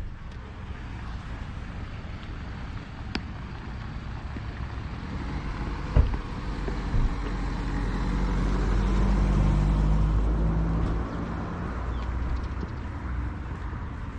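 A motor vehicle engine running with a low rumble. It swells louder past the middle, then drops off about eleven seconds in, with a few sharp knocks along the way.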